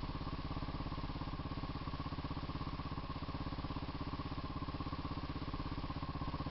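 ATV engine idling steadily, a rapid, even putter that holds the same pace throughout.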